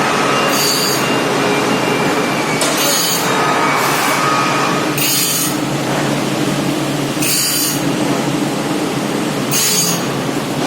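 Gear-tooth grinding machine running: a loud, steady mechanical din with a short burst of high hiss about every two seconds.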